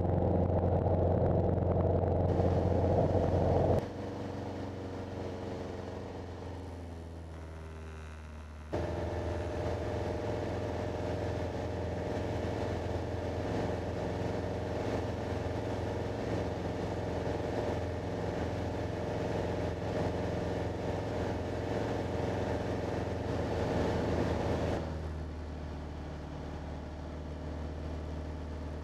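Single-engine piston light aircraft's engine and propeller droning steadily in the cockpit in cruise. The drone drops suddenly about four seconds in, comes back suddenly near nine seconds, and drops a little again near the end.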